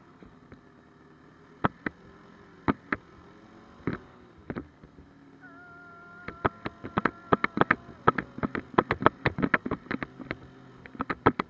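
Snowmobile engine running while riding, a steady hum whose pitch steps up and rises slightly about halfway through. Sharp clattering knocks come now and then, then in quick bursts through the second half.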